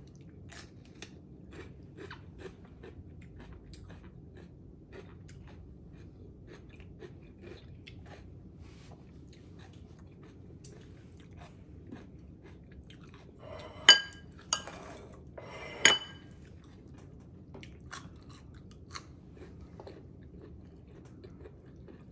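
Close-up chewing and crunching of food, with many small mouth clicks. About two thirds of the way in, a utensil clinks sharply against a dish three times, each clink ringing briefly.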